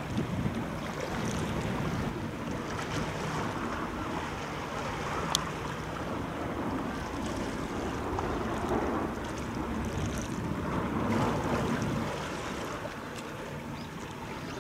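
Wind gusting over the microphone above choppy sea water, easing somewhat near the end, with one brief sharp tick about five seconds in.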